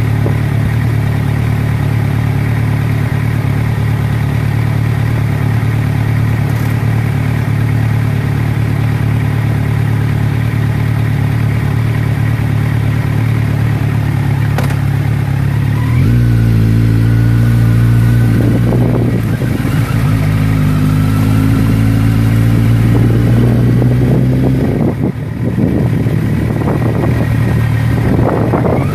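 An engine running steadily and loudly. About halfway through its tone shifts, then wavers up and down.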